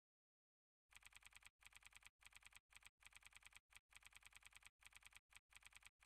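Faint typing sound effect: rapid key clicks, about ten a second, starting about a second in and coming in short runs with brief pauses between them, one click for each letter of text typed out on screen.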